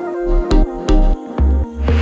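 Background music with a heavy bass beat and held notes, and a rising swoosh near the end.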